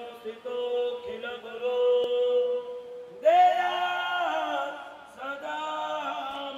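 Hindu priests chanting mantras together into microphones, in long held notes, with a louder phrase starting about three seconds in.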